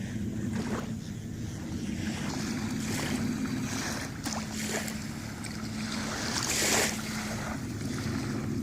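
Small waves washing on the beach and wind on the microphone, over a steady low hum, with a short louder rush of noise about two-thirds of the way through.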